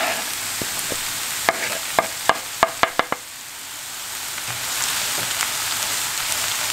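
Shredded white cabbage, onions and green peppers sizzling in oil in a frying pan as they are stirred with a wooden spoon. A quick run of sharp knocks from the spoon against the pan comes about one and a half to three seconds in. The sizzle dips briefly after that and then builds again.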